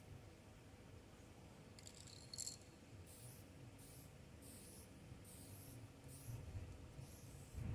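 Faint hiss of an aerosol spray paint can in about eight short bursts, from about two seconds in, each under half a second, as a line of paint is laid down; a soft low thump right at the end.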